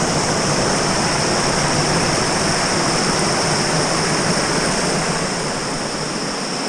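Steady, loud rushing of flowing river water, an even hiss with no breaks.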